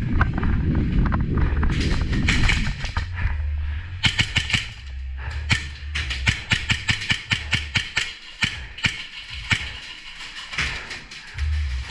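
Airsoft guns firing: rapid sharp cracks in irregular clusters of several shots a second, starting about four seconds in. Before that, a low rumble of wind and movement on the microphone.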